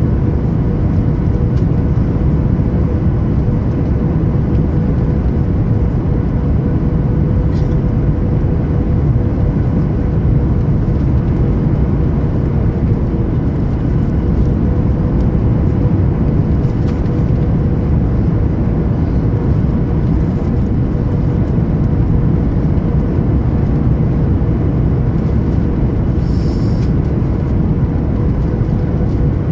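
Steady cabin noise inside a Boeing 737 MAX 8 in flight: its engines and the rush of air, with a steady hum under it.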